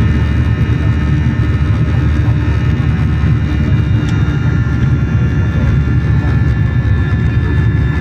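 Airliner cabin noise during the climb after takeoff: a steady, loud rumble of the jet engines and airflow, with thin steady whining tones above it.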